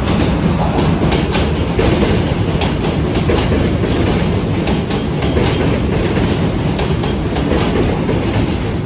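A New York City Subway train of R160 cars passing close by: a loud, steady rumble of steel wheels on rail, with repeated clacks as the wheels cross the rail joints.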